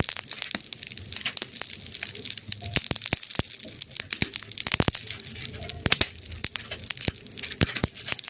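Campfire crackling: burning wood gives off many irregular sharp pops and snaps over a steady soft hiss.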